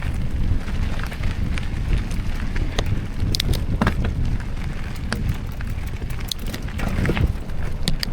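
Wind buffeting the microphone of a moving camera as a steady low rumble, with frequent sharp clicks and rattles mixed in.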